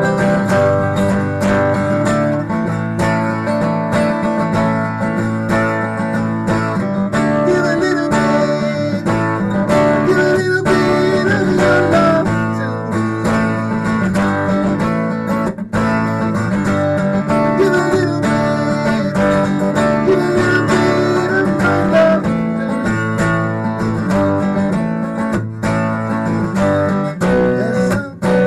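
Guitar music: strummed acoustic guitar chords with a wavering melody line over them, playing steadily.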